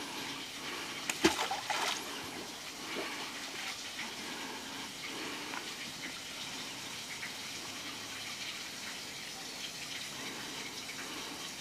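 Steady trickling, gushing water, with a single sharp impact about a second in.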